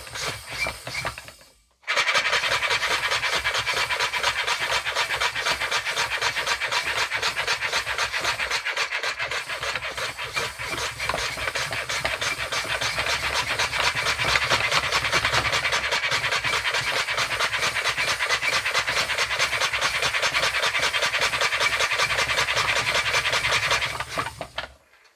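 3D-printed single-piston compressed-air engine running fast, a rapid, even puffing of exhaust air that cuts off just before the end. Its 3D-printed ball valve leaks air while it runs.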